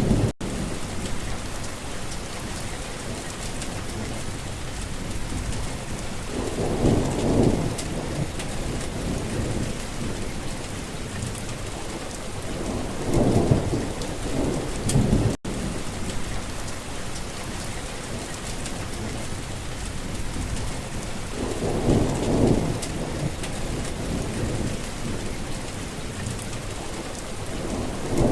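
Steady rain with low rumbles of thunder rolling in about every seven seconds, four times. The sound cuts out for an instant twice.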